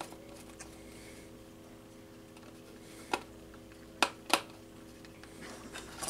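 A screwdriver working a terminal screw on a fire alarm pull station's metal backplate: faint handling clicks, with three sharper clicks about three and four seconds in, over a steady low hum.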